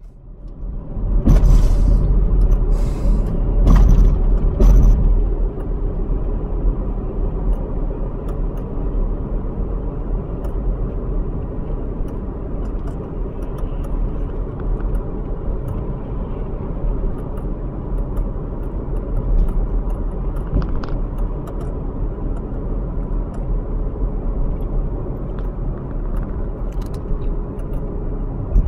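Steady low rumble of a car's engine and road noise heard inside the cabin while driving, with a few louder knocks and rattles in the first few seconds.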